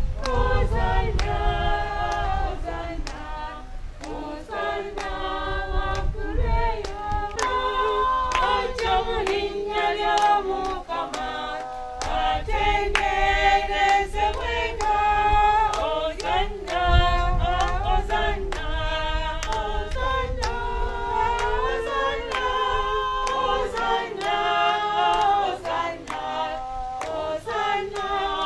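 Church choir of mixed voices singing a hymn in parts, unaccompanied, with a steady beat of sharp taps running under the singing.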